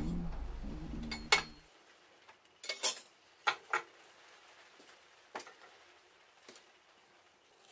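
Sharp metal clinks and knocks from an open solid-fuel stove being worked by hand, about half a dozen separate strikes spread over several seconds. A low hum stops about a second and a half in.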